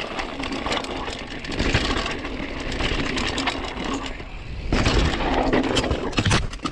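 A Mondraker mountain bike rolling over rough sandstone rock: a steady rattling, clattering rumble from the tyres and bike, full of small knocks. About five seconds in, it turns louder and harsher as the bike and rider crash and tumble into rock and dry brush.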